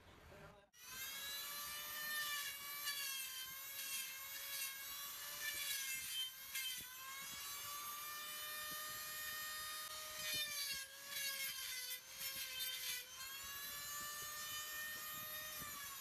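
Handheld high-speed die grinder running with a steady high whine, starting abruptly just under a second in; its pitch sags briefly a few times as the bit is pressed into the steel of the wheel's hub plate.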